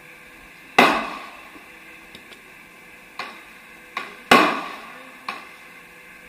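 Two loud, sharp bangs about three and a half seconds apart, each trailing off over about a second, with a few lighter clicks and knocks between and after them.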